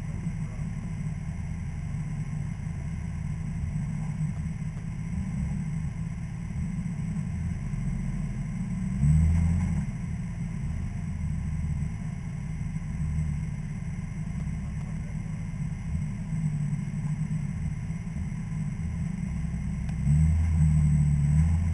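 Off-road vehicle engine running at a low idle with a steady low rumble, swelling louder briefly about nine seconds in and again near the end as it is revved.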